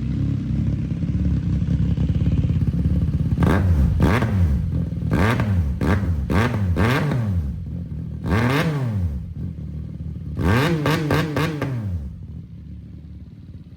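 CFMOTO 675NK three-cylinder engine with its catalytic converter cut out, idling and then revved in a string of short throttle blips: a bigger rev about 8.5 s in, a quick flurry of blips near the end, then it settles to a quieter idle.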